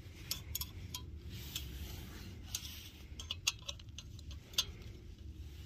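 Light metallic clicks and clinks, about a dozen at irregular intervals, from the folding metal handles of a stainless steel camping pot being turned round.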